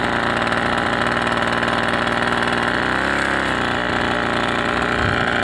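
Small engine of a backpack motorized sprayer running steadily at working speed while it sprays, with a steady hiss over the engine note.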